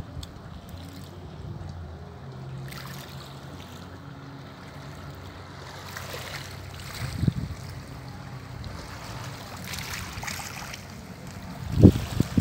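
Small waves washing softly on a pebble shore, with wind buffeting the microphone in low gusts, strongest about seven seconds in and near the end, and a faint steady hum of a distant motorboat.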